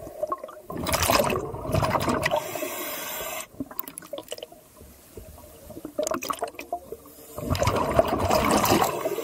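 Underwater bubbling from a scuba diver's exhaled air: two long bursts of rushing, gurgling bubbles about six seconds apart, with quieter gurgling between them.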